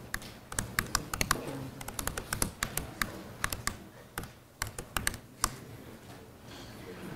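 Typing on a computer keyboard: a quick, irregular run of key clicks as terminal commands are entered, stopping about five and a half seconds in.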